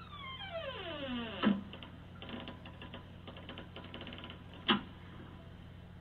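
A squeaky fart sound whose pitch falls steadily over about a second and a half. It is followed by a short rattling buzz of rapid pulses and then a single sharp click.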